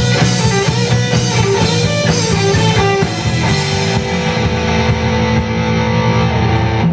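Rock band playing live: electric guitars over a drum kit. The drum hits thin out about four seconds in, leaving longer held notes.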